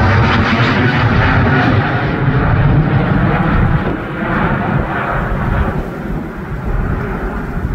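Airbus A350-900's twin Rolls-Royce Trent XWB engines at takeoff thrust, a loud rumble with a rushing hiss as the jet passes close overhead. It drops off noticeably about four seconds in, then keeps fading as the aircraft climbs away.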